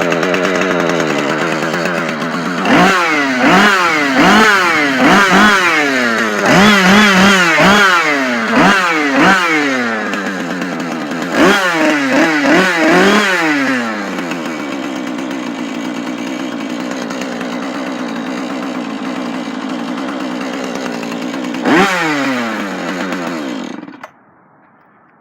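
Husqvarna 435 two-stroke chainsaw idling, then revved in a string of quick throttle blips for about ten seconds. It settles back to idle, is blipped once more, and is shut off near the end.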